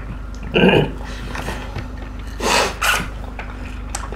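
Close-up sounds of eating by hand: two loud slurps, about half a second in and about two and a half seconds in, with small clicks and rubbing of fingers on food and plates between them.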